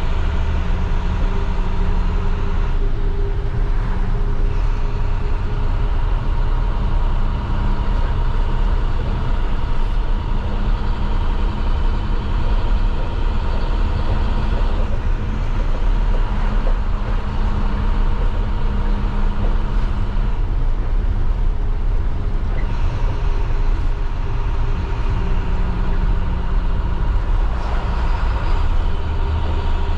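MaxxForce DT inline-six diesel of an IC CE school bus running under way, heard from the driver's seat inside the cab. Its note rises and falls several times with road noise underneath.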